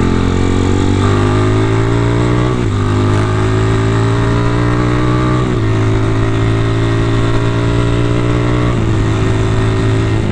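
Single-cylinder four-stroke motorcycle with a CJDW racing exhaust pulling on the road, its pitch climbing slowly, with brief dips about every three seconds. The rider says the clutch plates are slipping badly.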